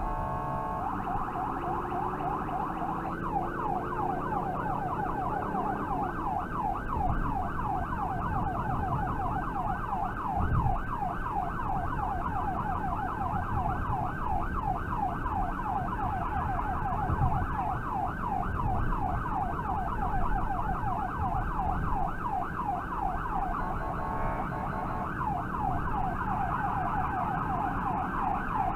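Electronic emergency siren running in a rapid yelp, heard from inside the responding vehicle, with a steady horn-like blare right at the start and again about 24 seconds in.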